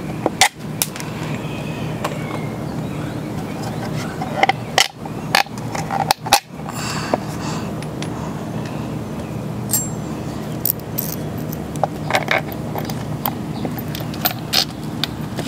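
Scattered sharp clicks and knocks of hand tools and parts as a small cover is refitted on a motorcycle, over a steady low hum.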